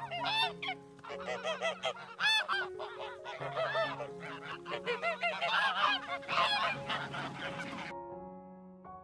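Geese honking over and over, short arched calls that often overlap, busiest in the middle stretch and tailing off near the end. Soft background music with held chords plays underneath.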